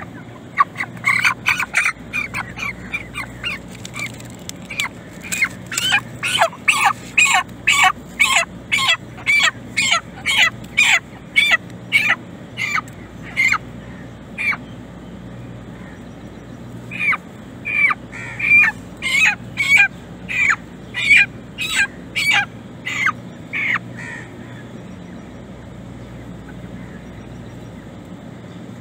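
A white broiler chicken squawking in distress while held down, giving short, sharply falling calls about two a second. There are two bouts with a pause of a couple of seconds between them.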